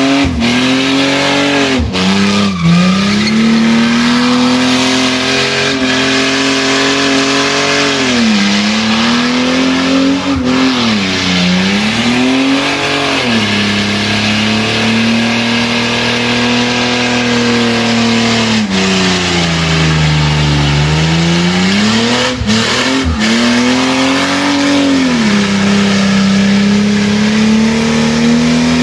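Car engine held at high revs for a long stretch, its pitch sagging and climbing back several times, with a few short sharp cracks, the way a car sounds doing a skid (burnout).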